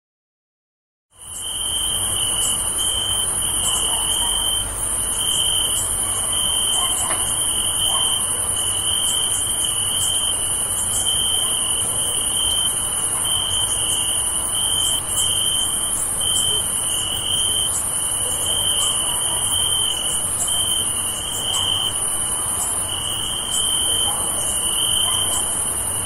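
Crickets chirping in a steady night chorus, a lower pulsing trill and a much higher continuous one together, starting about a second in.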